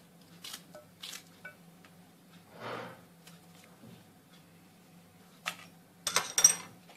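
Pieces of green banana and vegetables handled and set into a glass baking dish around a raw chicken: a few light clicks and a soft rustle, then a cluster of sharper taps and clinks against the glass near the end, over a faint steady hum.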